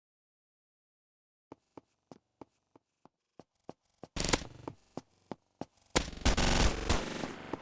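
Faulty audio playback: a dead-silent dropout, then sharp clicks about three a second, then two loud bursts of harsh static.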